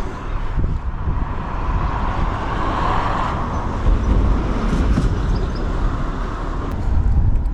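Wind buffeting the microphone, with the noise of a passing road vehicle swelling and fading around the middle.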